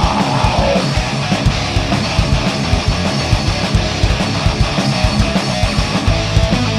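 Heavy metal band playing live, an instrumental passage without vocals: distorted electric guitars and bass over fast, steady kick-drum hits.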